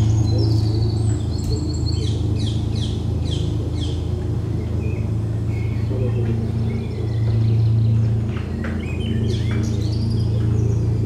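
Recorded birdsong, groups of quick chirps and falling trills, over a steady low drone.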